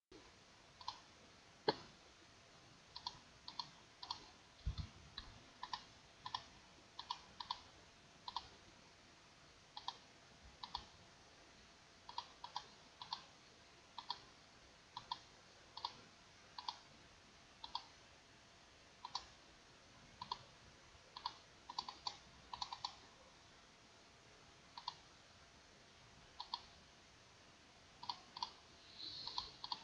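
Computer mouse clicking: sparse, irregular clicks, about one or two a second and often in quick pairs, over a faint steady hiss. There is a soft low thump about five seconds in.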